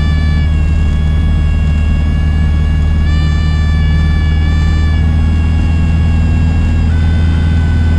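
Cessna 150's four-cylinder Continental O-200 engine and propeller at full power, heard inside the cabin as a loud, steady drone while the plane climbs out of slow flight and builds airspeed. A high whine rides on top and shifts slightly in pitch a few times.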